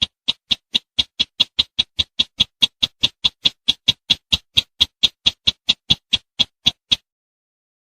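Lure recording of the sintar semak (bush sintar) call: a fast run of short, sharp, high ticking notes, about five a second, that stops about seven seconds in.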